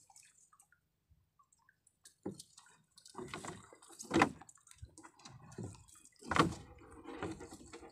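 Collapsible net fish traps being handled and folded in a boat: netting rustling and frames knocking against the hull in an irregular run of sounds that starts about two seconds in, with two louder knocks about four and six seconds in.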